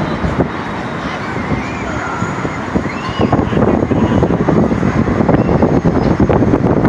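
Wind buffeting the phone's microphone high on an open observation tower, a loud rumbling rush, with faint voices from somewhere in it.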